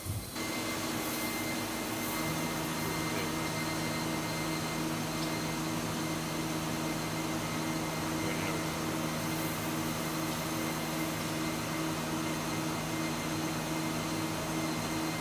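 Cincinnati Lamb VCnC 760 vertical machining center running: a steady machine hum made of several held tones, with a lower tone coming in about two seconds in and holding steady.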